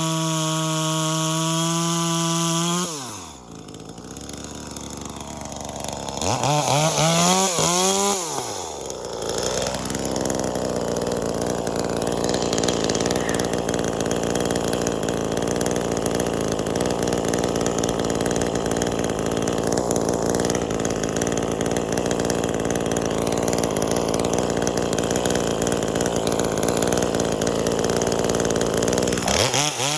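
Two-stroke top-handle chainsaw, a V-Modest 2511T clone of the Echo 2511T, held at full throttle for about three seconds, let back, revved once more, then run under load for most of the rest, as in a cut through wood, before revving free again at the end.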